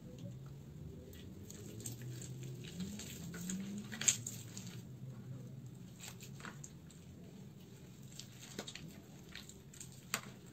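Hands squeezing and crumbling wet, water-soaked soap in a plastic tray of water: soft squishing with sharp crackling clicks, the loudest about four seconds in.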